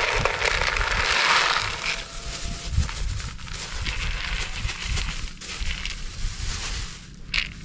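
Chicken feed grain poured from a plastic bag into a plastic bucket: a dense rush of grain for the first two seconds, then the plastic bag rustling and crinkling as it is shaken empty, with a sharp crinkle near the end.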